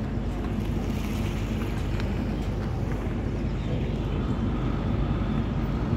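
Steady low rumble of a moving vehicle, heard from on board.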